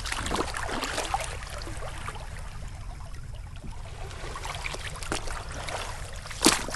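Water trickling and splashing in small drips and laps around a kayak in shallow water, with one sharp knock near the end.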